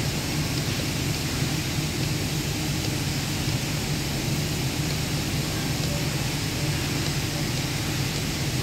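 Steady drone of industrial plant machinery: a low hum under an even, wide hiss, unchanging throughout.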